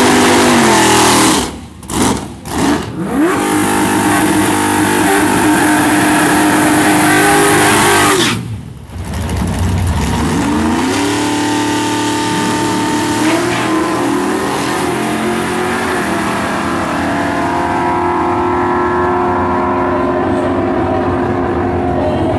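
Drag racing cars' engines at high revs: a loud burnout run, cut and blipped a few times early, then held high again. After a short lull midway, engines rev up with a rising pitch and run steadily as two cars launch and pull away down the strip.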